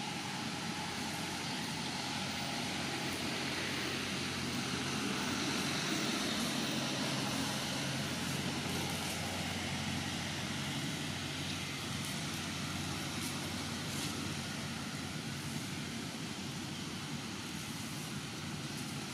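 Distant engine noise: a steady rumble that swells about six seconds in and then eases off.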